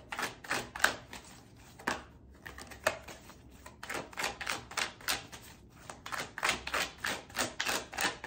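A deck of tarot cards being shuffled and handled: an uneven run of sharp clicks and slaps, several a second, with short pauses.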